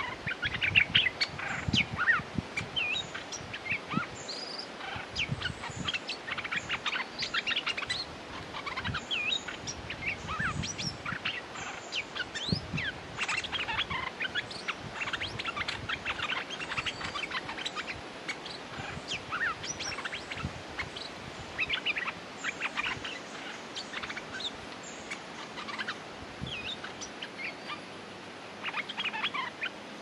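Stripe-throated bulbuls giving dense, rapid runs of short, sharp chirping calls. A territorial wild bird is answering a caged decoy as a challenge. A few soft low knocks sound among the calls, and the calling thins out near the end.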